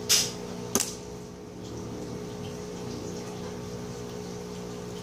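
Two short handling sounds from a smartphone held in the hand, a brief scrape and then a sharp click about two-thirds of a second later, as its side buttons are pressed. A steady low electrical hum runs underneath.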